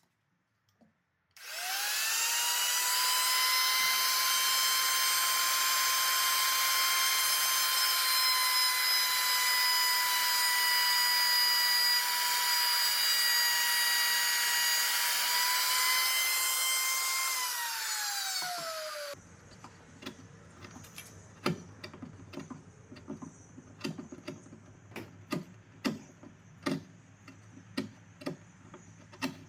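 Trim router starting up with a rising whine about a second and a half in, then running steadily while its straight bit clears the waste between dovetail pins. It winds down at around two-thirds of the way through. After it stops, a hand chisel paring the joint gives a series of sharp clicks.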